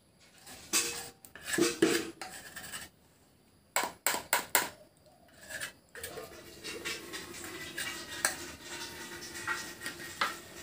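A metal spoon scraping and tapping against a small metal saucepan, scooping out thick semolina paste, in a few bursts of scrapes with a quick run of sharp taps about four seconds in.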